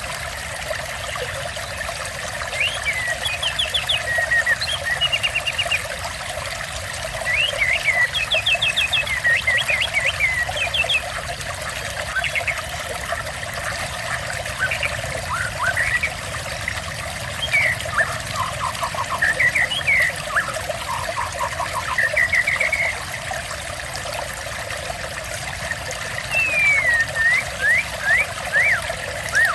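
Steady trickling, splashing water with a songbird singing over it in bursts of short whistled phrases, quick trills and sliding notes.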